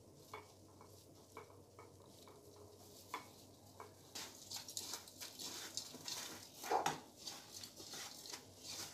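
Light scattered taps against glass bowls and dishes, then from about four seconds in a dense crinkling crunch as a plastic-bag-covered hand presses chicken into crushed cornflakes, loudest about seven seconds in.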